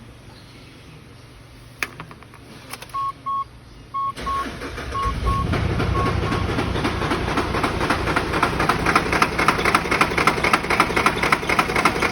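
A click, then a few short electronic beeps as a Mitsubishi Shogun's 4M41 3.2-litre four-cylinder turbodiesel is started about four seconds in. It catches and settles into a steady, rhythmic diesel idle; the owner says its engine knock has been fixed.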